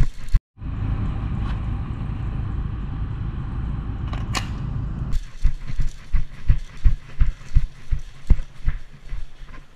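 A steady rushing noise for about four and a half seconds, then footsteps on a concrete floor, roughly three heavy steps a second, as a person walks along with a body-worn camera.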